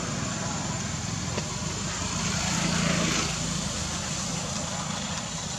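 A small engine running steadily in the background, growing a little louder for about a second halfway through.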